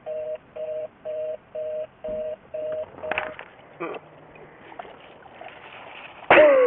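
Telephone fast busy (reorder) signal: a steady two-note tone beeping about twice a second, then cut off about three seconds in. After it there is faint outdoor noise, and a loud shout near the end.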